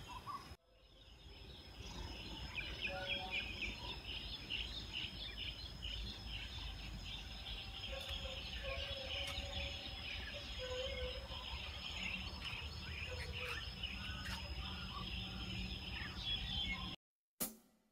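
Evening outdoor ambience: many small birds chirping densely over a steady high-pitched tone and low background hum. It cuts off suddenly near the end.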